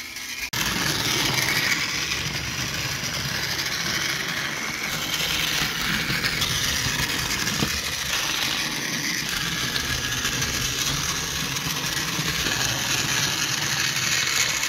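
Trackmaster Bertram battery-powered toy engine running along plastic track, its small motor and gearbox whirring steadily with a light rattle of wheels on the track; it starts abruptly about half a second in. The gearbox has had its noisy cog replaced.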